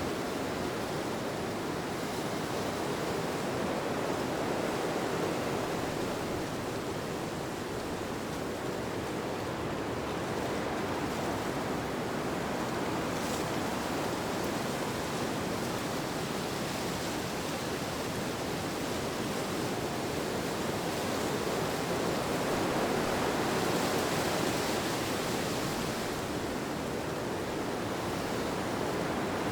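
Steady rushing wind ambience that swells and eases slowly every few seconds.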